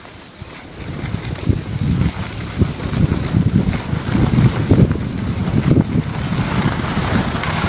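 Wind buffeting the microphone of a camera carried downhill by a skier, an irregular gusty rumble that picks up about a second in.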